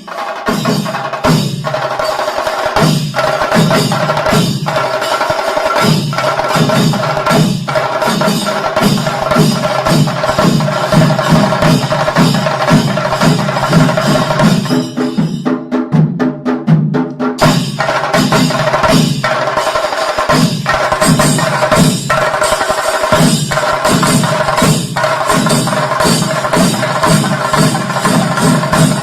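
Background music with a steady percussive beat; its bass drops out for a couple of seconds a little past halfway, then comes back.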